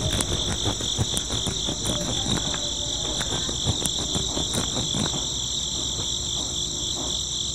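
Steady high trilling of insects, with a run of small clicks and scratches over the first five seconds or so as a miniature hooked sickle blade saws at the base of plant stalks.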